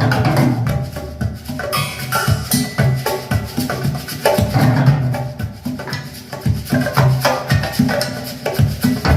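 Instrumental music with a steady percussion beat of wood-block-like clicks and drums over a repeating bass line.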